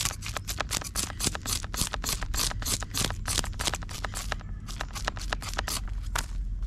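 A knife scraping the scales off a whole barramundi on a plastic cutting board: quick repeated strokes, about five a second, with two short pauses in the second half.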